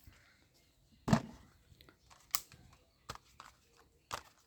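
Plastic toy guns being handled: a handful of short, sharp plastic clicks and knocks, the loudest about a second in, with gaps between them.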